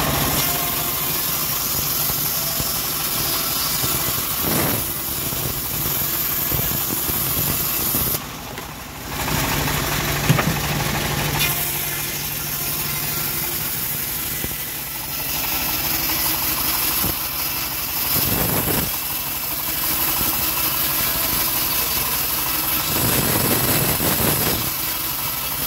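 Homemade engine-driven bandsaw mill running steadily, its band blade sawing teak into rafter stock. The sound drops briefly about eight seconds in.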